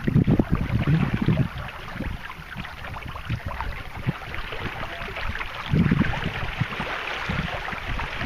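Wind buffeting the microphone in low gusts, strongest near the start and again about six seconds in, over a steady hiss of water running along the hull of a 16-foot plastic canoe under sail.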